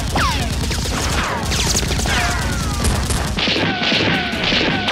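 Dense volley of gunfire sound effects, with repeated falling whistles of bullets flying past about every half second, over a steady low rumble.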